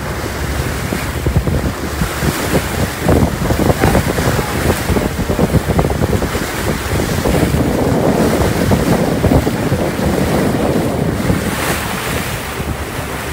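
Wind buffeting the microphone and water rushing past the hull of a moving fishing boat, over a steady low drone from the boat's engine.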